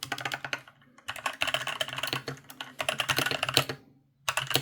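Fast typing on an Asus ROG Falchion NX 65% keyboard with linear switches: rapid keystroke clicks in three runs, with a short break about a second in and another near the end.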